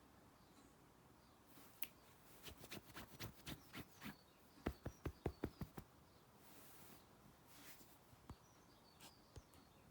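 A run of light clicks and taps that comes faster and louder near the middle, about four a second, with faint bird chirps in the background.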